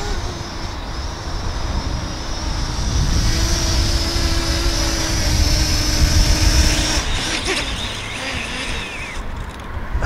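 Parrot Anafi quadcopter hovering close by as it comes in to land, its propellers and motors giving a steady whine over heavy wind rumble on the microphone. The steady tones drop away about seven seconds in.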